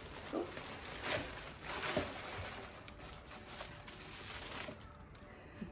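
Tissue paper rustling and crinkling as it is handled in a shoebox, with a couple of louder crinkles in the first two seconds.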